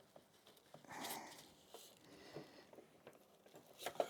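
Quiet handling sounds of fabric and thread at a stopped sewing machine: a soft rustle about a second in and a few light clicks, sharper near the end.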